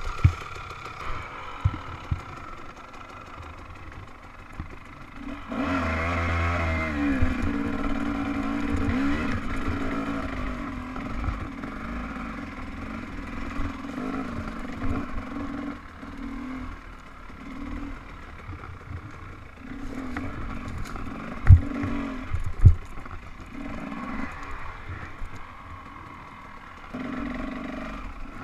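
KTM dirt bike engine, quiet at first, then revving up about five seconds in. It keeps running with the throttle rising and falling on a rocky woods trail. Two sharp knocks come a little after twenty seconds.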